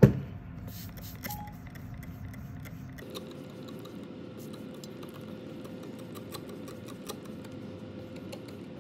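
A sharp knock at the start, then faint scattered clicks and taps of small objects being handled. A steady faint hum comes in about three seconds in.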